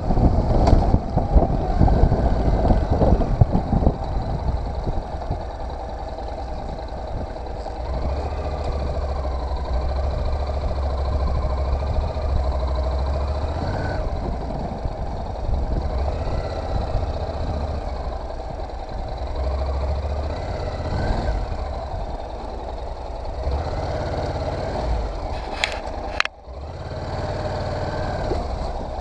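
Honda NC700X's parallel-twin engine running as the motorcycle rides a dirt track, its pitch rising and falling with the throttle, with rough low rumbling in the first few seconds and a brief sudden dip near the end.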